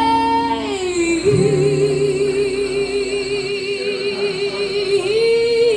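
Live singing: a singer holds one long wordless note with a steady vibrato, steps up slightly near the end, and keeps holding, over quiet accompaniment.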